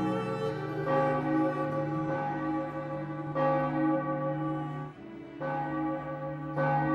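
Large bronze church bells swinging in a steel bell frame and ringing, a new stroke every one to two and a half seconds, each tone ringing on into the next.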